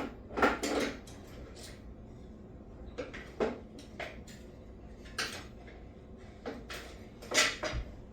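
Scattered knocks and clatters of hand tools and small parts being handled while the lawnmower's petcock and fuel lines are taken apart, a few sharper knocks among them.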